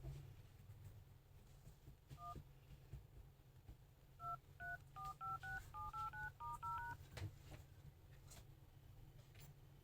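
Keypad dial tones from a Vivo Y15 smartphone's dialer as digits are tapped on its touchscreen: one tone beep, then about a dozen in quick succession, faint, with a few light taps. The keys sounding show the newly replaced touchscreen registering touches.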